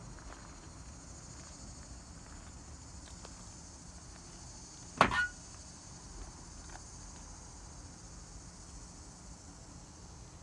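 Steady high-pitched chirring of insects, with a single sharp clunk about halfway through that is the loudest sound.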